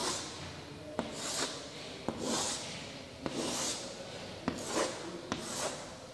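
Chalk scraping across a chalkboard in a series of short strokes, roughly one a second, with light taps as the chalk meets the board: grid lines being drawn.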